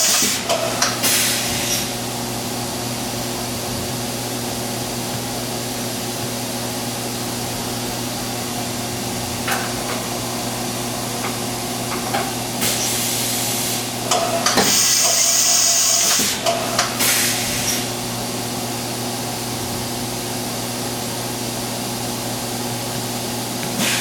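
Fadal VMC 4525HT vertical machining center cycling its twin-arm side-mount tool changer over a steady machine hum. Short hissing blasts of compressed air come at the start and again about 13 to 17 seconds in, with a knock near 10 seconds, typical of the spindle releasing and clamping a tool.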